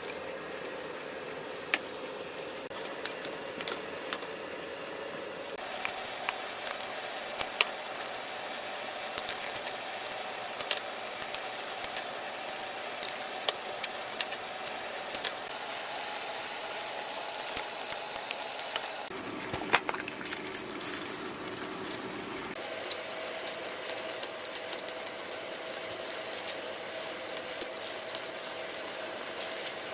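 Kitchen cooking sounds: a steady hum under many scattered sharp clicks and crackles. The hum changes pitch abruptly three times, at cuts between clips.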